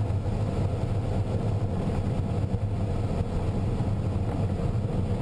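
Steady rush of airflow around an ASW-19B glider's canopy, heard from inside the cockpit on final approach just above the runway.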